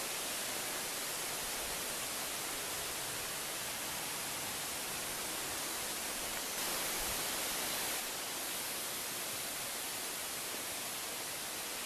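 Steady, even hiss with no distinct events, a little louder for about a second and a half around seven seconds in.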